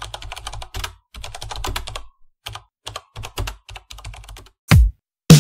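Computer keyboard typing sound effect: bursts of rapid key clicks. Near the end come two loud, deep thuds that drop in pitch.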